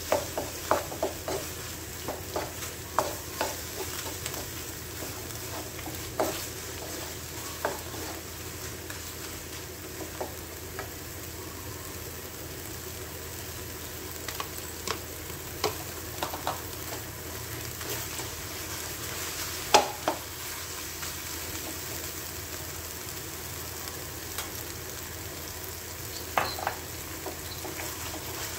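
Wooden spatula stirring and scraping in a non-stick wok, with scattered sharp knocks against the pan, over a steady sizzle of shrimp and vegetables frying in sauce. The knocks come thickest in the first few seconds; the loudest single one falls about two-thirds of the way through.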